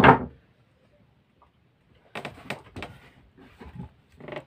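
Wooden knocks on a boat's plank deck: one heavy thud at the start, then after a short pause a string of lighter, uneven knocks and taps.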